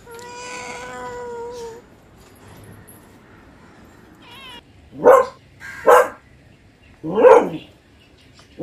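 Cat meowing: one long, level meow at the start, then four short, loud meows in the second half.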